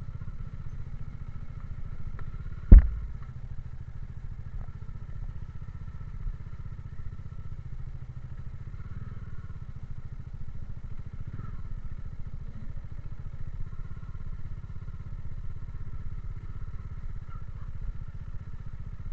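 Motorcycle engine running steadily at low revs while riding, heard from the bike itself, with one loud, sharp knock about three seconds in.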